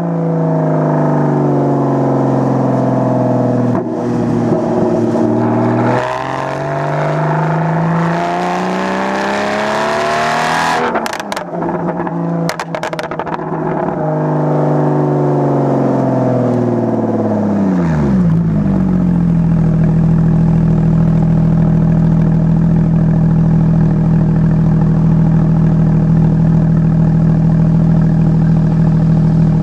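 Porsche Boxster 981's flat-six through a straight-piped exhaust, heard close at the tail: the revs climb and drop through several pulls and gear changes, with a cluster of sharp cracks and pops about halfway. The revs then fall away, and it settles to a steady drone.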